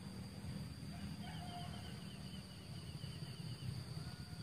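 Outdoor ambience: a faint rapid bird trill, repeated in two runs, and a short call about a second and a half in, over a steady high insect drone and a low rumble of wind.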